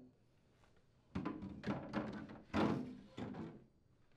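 Plastic freezer drawer and wire shelving of a Whirlpool side-by-side refrigerator being slid and set back into place: a run of knocks, clacks and scrapes starting about a second in.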